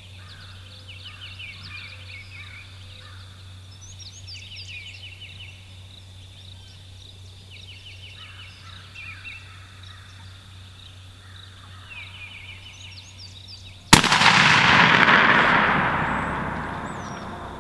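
A single shotgun blast about 14 seconds in, the loudest sound by far, its echo rolling away through the woods over about three seconds. Before it, repeated trilling bird calls and a wild turkey gobbling.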